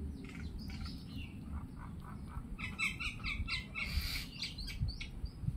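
A bird chirping: scattered calls, then a quick run of short repeated notes for about two seconds midway, over a steady low rumble.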